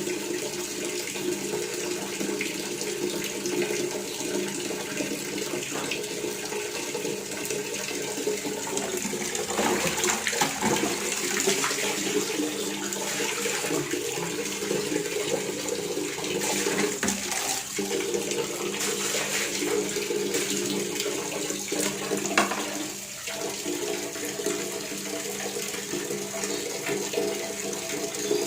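Water running steadily from a faucet into a sink or basin, a continuous splashing hiss that swells slightly about a third of the way in, with a brief sharper splash or knock a little after two thirds of the way through.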